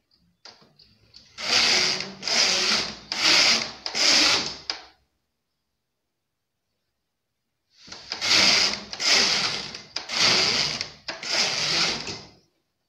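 Flat-bed knitting machine carriage pushed back and forth across the needle bed, knitting four rows. Four quick sliding passes are followed by a pause of about three seconds, then four more passes.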